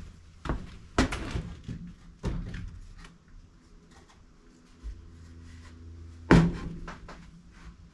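Knocks and thumps of 2x4 lumber being handled and set against a wooden shelf frame inside a steel shipping container, with smaller clicks between and the loudest, sharpest thump about six seconds in.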